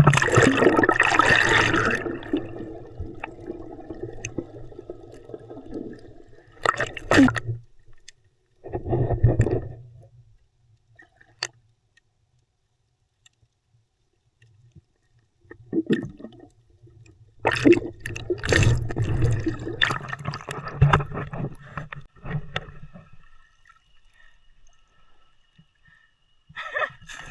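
Seawater sloshing and gurgling over the microphone of a camera being dipped in and out of the sea. It comes in irregular bursts, the loudest at the very start and again in a long stretch past the middle, with a few seconds of near silence between them.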